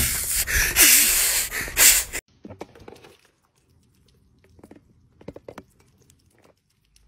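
Loud bursts of rushing, hissing noise on an outdoor phone recording for about two seconds, cut off sharply. Then faint wet clicks and nibbling of a duck's bill and a cat eating together from a small plate.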